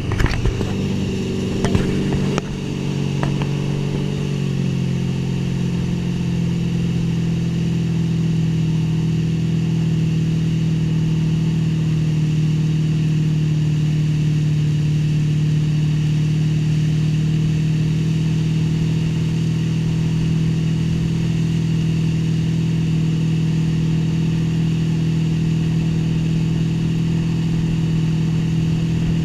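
Motorboat engine running steadily at speed. A few sharp clicks come in the first few seconds, and the engine note eases slightly lower about four seconds in, then holds steady.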